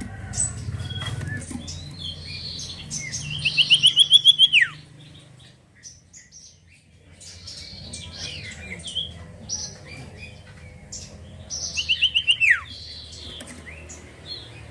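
Common iora (cipoh) singing: twice, a fast run of repeated notes that ends in a long whistle sliding down in pitch, among shorter high chirps. A low steady hum runs underneath.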